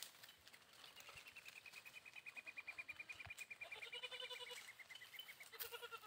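A goat bleating faintly, briefly about four seconds in and again just before the end, over a high, rapid trill that runs most of the way through and slowly falls in pitch.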